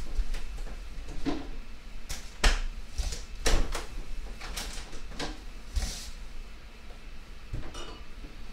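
Rummaging in an open refrigerator: an irregular series of sharp knocks and clicks as containers and the shelves are handled.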